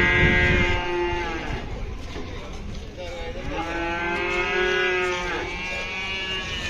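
Cattle mooing in long, drawn-out calls: one trails off about a second in, another runs from about three seconds in, and a shorter call follows near the end.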